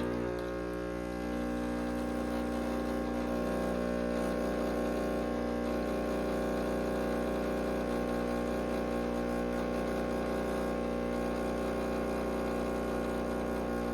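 Espresso machine's pump humming steadily, with a little hiss of water, as while pulling a shot; it steps up slightly about a second and a half in and then holds.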